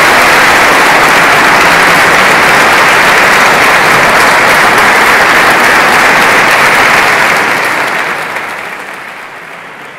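Loud, dense applause from an audience, steady at first and then fading away over the last three seconds.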